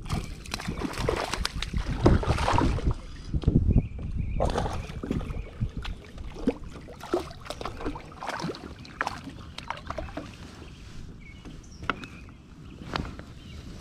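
Water splashing and sloshing around a kayak, with handling noise and scattered sharp clicks and knocks against the hull. The heaviest splashing and rumbling comes in the first few seconds.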